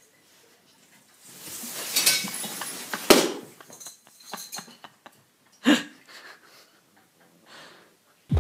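Decorated Christmas tree toppling over with a cat climbing in it: rustling branches build up, then a crash about three seconds in with glass baubles clinking, and another sharp knock a few seconds later.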